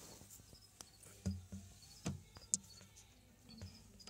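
Crickets chirping faintly in short, high chirps that repeat every half second or so, with a few soft knocks and clicks standing out about a third and half of the way through.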